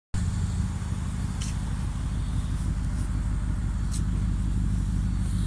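Audi A6 4.2 V8 exhaust at a steady idle, a low, even rumble.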